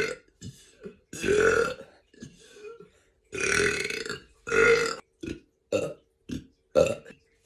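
A person burping over and over: several long drawn-out burps, then about five short, quick burps in the last couple of seconds.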